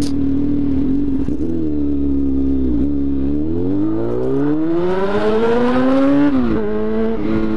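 Honda motorcycle engine with an open exhaust, heard from the rider's seat. It runs steadily and eases off, then revs climb for about three seconds under acceleration. The pitch drops sharply at an upshift about six seconds in and picks up again just before the end.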